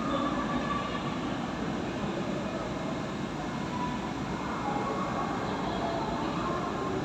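Steady low rumbling background noise of a large indoor hall, with faint snatches of distant voices.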